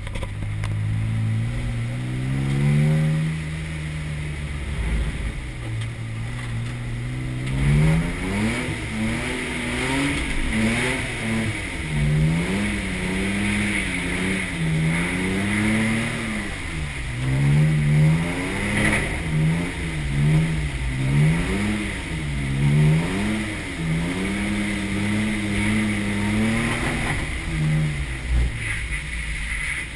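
BMW E30's engine heard from on board while drifting: held fairly steady at first, then from about a quarter of the way in the revs swing up and down over and over as the throttle is worked through the slides.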